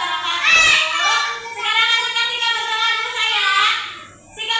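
Children singing a song, held sung notes with a louder rising note about half a second in and a brief break near the end.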